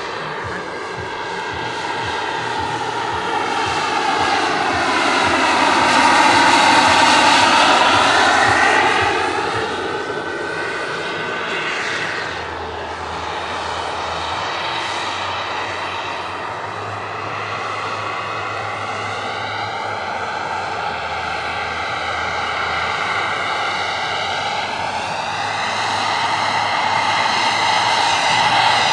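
Turbine-powered scale model Eurocopter EC135 helicopter flying: a steady turbine whine with rotor noise. The pitch sags and climbs back, and it is loudest about six to eight seconds in.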